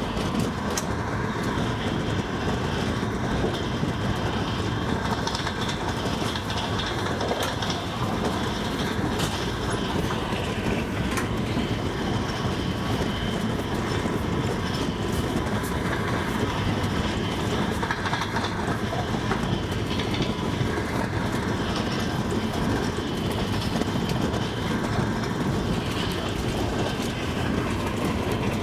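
Double-decker passenger train running on the track: a steady rumble of wheels on rail, with the clickety-clack of the wheels over the rail joints.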